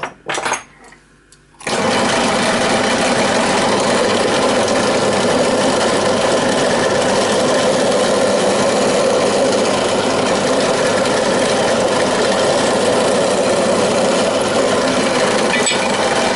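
Bench drill press motor starting about two seconds in and running steadily while a 1/8-inch bit drills through a metal casting held by hand on the table.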